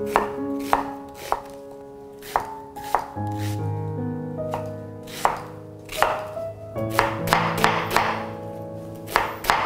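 Chef's knife cutting through a yellow onion and knocking on a wooden end-grain cutting board: single cuts about a second apart at first, then a quicker run of chops near the end.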